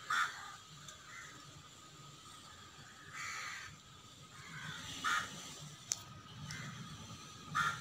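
Faint pencil strokes on drawing paper, with a few short harsh animal calls in the background and a single sharp click near the end.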